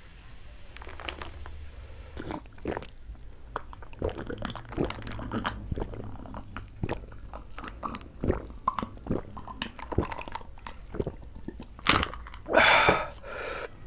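Close-miked eating and drinking: irregular wet clicks of chewing and swallowing, with gulps of fizzy cola from a glass partway through. Near the end comes a loud, breathy burst, a breath out after the drink.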